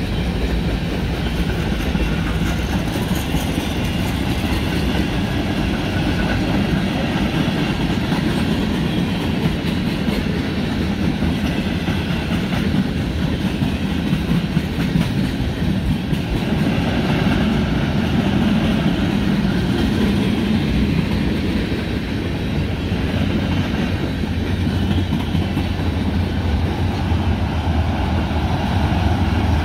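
Tank cars and flatcars of a long mixed freight train rolling past, their steel wheels running steadily on the rails with rapid clicking.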